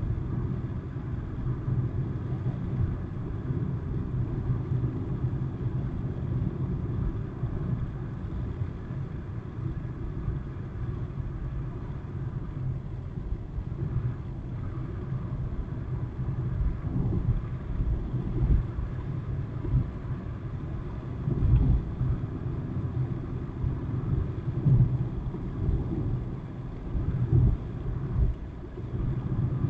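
Car driving at motorway speed, heard from inside the cabin: a steady low rumble of tyres on the road and engine, swelling louder several times in the second half.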